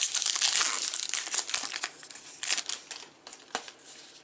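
Crinkling of a plastic trading-card pack wrapper being handled and opened, dense for about two seconds, then a few shorter crackles.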